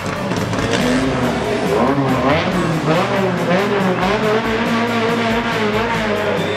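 Rally car engine running as the car pulls away slowly, its revs repeatedly rising and falling.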